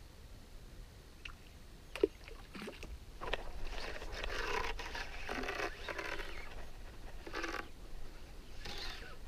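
Barbel caller rod (roepstok) being worked at the water surface, making a run of splashing, gurgling strokes from about three seconds in, after a single sharp knock about two seconds in. This is the calling sound used to draw sharptooth catfish.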